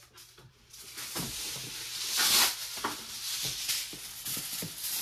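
Aluminium foil crinkling and rustling as it is handled, starting about a second in and loudest a little past the middle.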